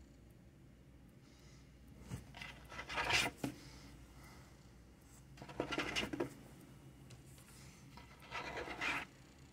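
Scratching and rubbing on the fabric-covered top of a lap tray, in three short rasping bursts about three seconds apart.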